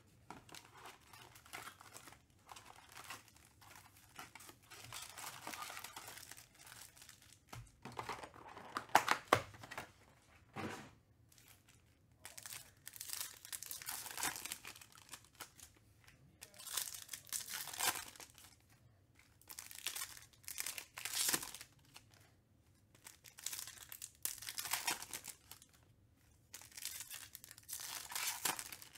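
Trading-card pack wrappers being torn open and crinkled, in a run of rustling bursts each lasting a second or two; the loudest comes about nine seconds in.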